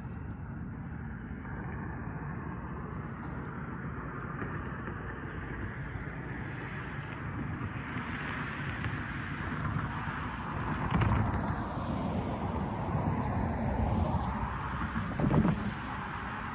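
Road traffic passing: steady tyre and engine noise that builds, with a vehicle passing close about eleven seconds in and a short knock near the end.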